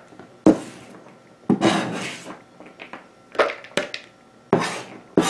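A kitchen knife scraping chopped celery across a cutting board and knocking against the rim of a plastic bowl as the celery is pushed in. It comes as a series of short scrapes and sharp knocks, about one a second.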